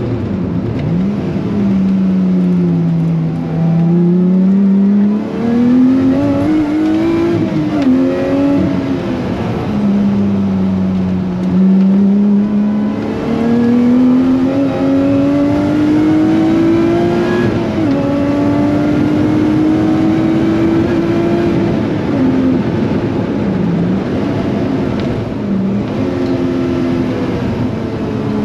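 Lotus Exige 430 Cup's supercharged 3.5-litre V6 driven hard on track, its note climbing steadily through the revs in long pulls and dropping sharply several times at gear changes and lifts, over a steady rushing noise.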